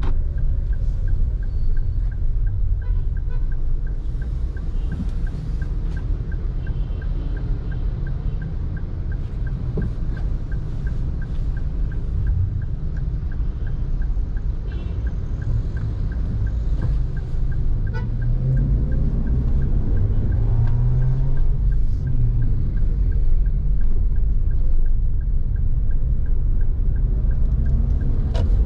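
Road traffic heard from a moving vehicle: a steady low rumble of engine and tyres, with other vehicles passing and a few short, faint horn beeps.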